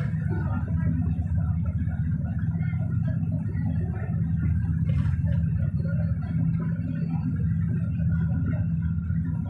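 Steady low rumble and hum inside a moving vehicle's cabin.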